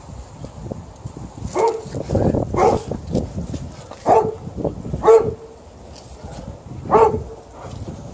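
Alaskan Malamute making short pitched vocal calls, about five of them, while tugging on a rope toy; the loudest come around four, five and seven seconds in.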